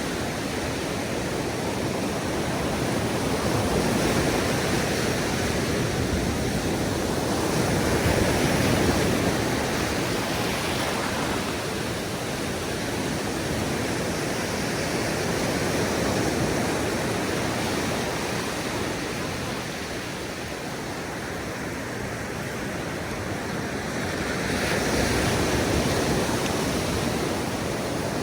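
Ocean surf on a beach: waves breaking and washing up the sand in a steady wash of noise that swells and eases every few seconds.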